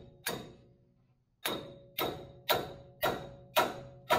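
Hammer blows on steel, each with a short metallic ring: one blow, a pause of about a second, then six steady blows about two a second, knocking the tapered stud of a steering stabilizer end out of its mount.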